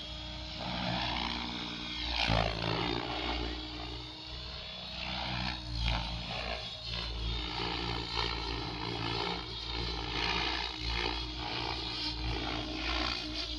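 Electric RC helicopter (Blade Fusion 700) in aerobatic flight: a pulsing rotor chop over a steady motor whine, the pitch sweeping down and back up about two seconds in.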